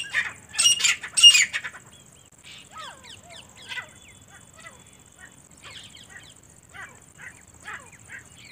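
Grey francolins (teetar) calling: three loud, shrill calls in the first second and a half, then a run of quieter, quick notes that each slide downward in pitch.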